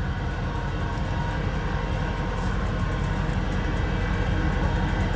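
Steady low mechanical rumble with faint steady whining tones, slowly growing louder.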